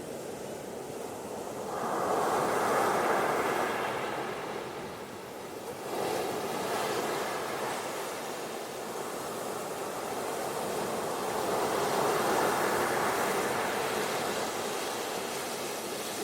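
Ocean surf washing onto a beach in repeated waves: one swells in about two seconds in, the next comes in suddenly around six seconds, and a longer one builds and fades in the second half.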